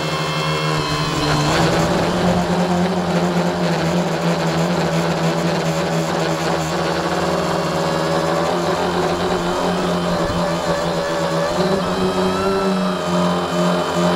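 Tricopter's three motors and propellers whirring close to the onboard camera. The pitch dips and climbs again about a second in as the throttle changes, then holds fairly level with small wavers.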